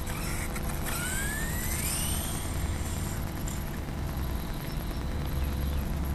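Brushless electric motor of a 1/8-scale VRX-1 RC truggy whining up in pitch as the truggy accelerates away over asphalt, with a hiss over it. A low rumble sits underneath.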